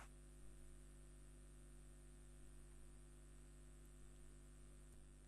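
Near silence: a faint steady hum with light hiss from the recording itself.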